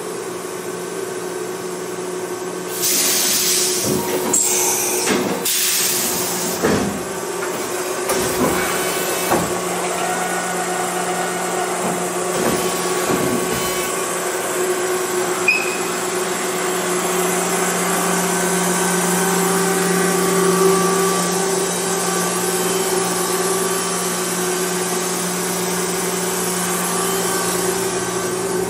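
Mori Seiki NH5000/40 CNC horizontal machining center running under power, with a steady hum from its motors and pumps. Several hissing bursts and knocks come in the first seven seconds or so, and a few more knocks follow before it settles into the steady hum.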